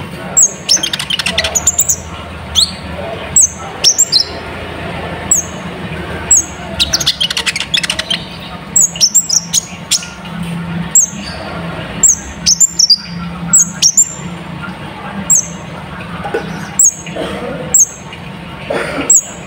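Kolibri ninja sunbird singing: a string of short, sharp, very high chirps, each falling in pitch and repeated every half second to a second. Rapid chattering trills come about a second in and again about seven seconds in.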